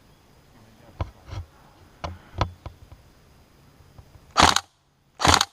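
Airsoft electric rifle firing close to the microphone: a few sharp cracks, then two loud short bursts of fire about a second apart near the end.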